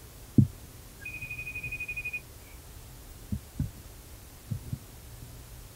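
Soft knocks and thumps on the meeting table picked up by the table microphones, the loudest just under half a second in, with a few more in the second half. About a second in, a single high steady tone sounds for about a second, its loudness pulsing rapidly.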